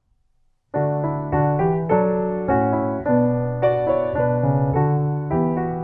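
Piano music begins about a second in, playing a steady run of chords.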